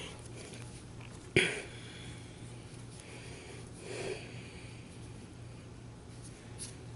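A person's breathing and sniffing close to the microphone, a soft breath every few seconds, with one sharp knock about a second and a half in as the loudest sound. A steady low hum runs underneath.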